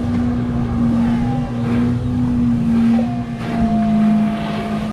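An engine running steadily with a low, even hum that shifts slightly in pitch near the end.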